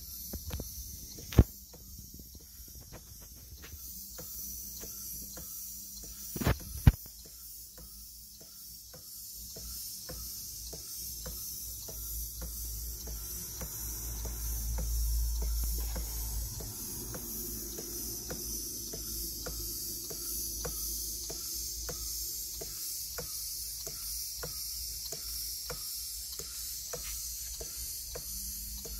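Holzapfel Victoria-style model horizontal steam engine, single cylinder of one-inch bore, running with a regular light beat of about two to three a second over a steady high hiss. A few sharp knocks stand out in the first seven seconds.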